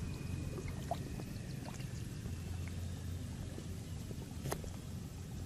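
Wind rumbling on the microphone over shallow water, with faint scattered ticks and light water sounds, and one sharper click about four and a half seconds in.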